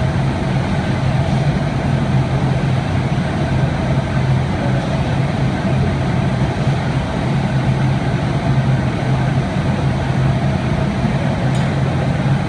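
Steady machinery noise of a glassblowing factory floor: the constant rush of furnaces and blowers under a low, unchanging hum.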